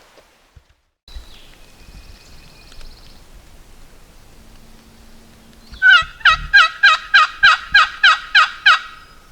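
Wild turkey calling: a loud run of about a dozen evenly spaced yelping notes, about four a second, lasting some three seconds and starting about halfway in.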